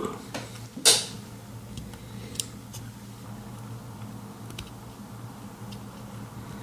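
Handling noise: a short rustle about a second in, then a few faint small clicks spaced a second or more apart, over a steady low hum.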